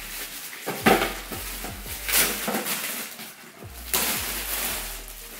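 Shiny metallic gift-wrapping paper rustling and tearing in several loud crackling bursts as a gift is unwrapped by hand, with light knocks in between.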